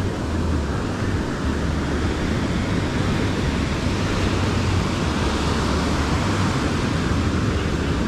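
Surf breaking and washing up a sandy beach, a steady rushing, with a low wind rumble on the microphone.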